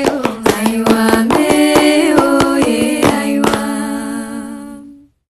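A voice singing held notes over a steady rhythm of hand claps, several claps a second. It all fades out near the end.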